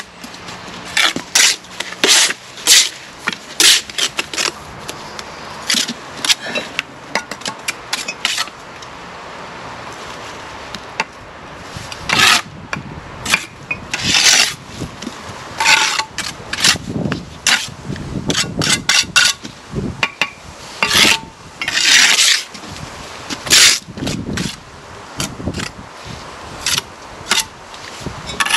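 Bricklaying trowels scraping through mortar and tapping London bricks down into their bed: many short, irregular scrapes mixed with sharp taps.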